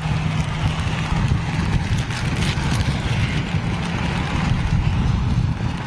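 Heavy rain pelting down with wind buffeting the microphone: a loud, uneven low rumble, a hiss across the highs, and scattered sharp taps of drops.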